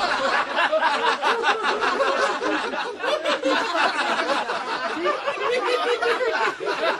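Audience laughing and chattering in a crowd, many voices at once.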